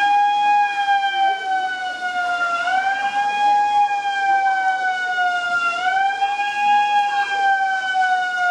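Alarm siren sounding as the earthquake signal in a drop, cover and hold drill: one pitched tone that rises quickly and then sinks slowly, repeating about every three seconds.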